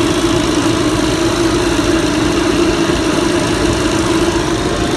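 Refrigeration vacuum pump running steadily with a constant hum, pulling a vacuum on the refrigerant system.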